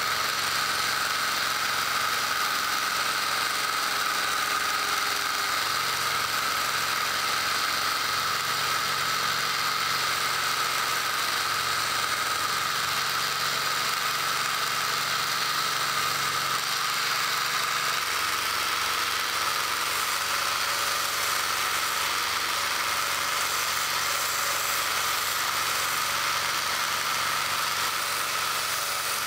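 Homemade mini belt sander driven by a 24 V DC 775 motor, running steadily with a whir and the hiss of the abrasive belt as the edge of an acrylic sheet is sanded. From about two-thirds of the way in the low hum changes and a steel knife blade is ground on the belt.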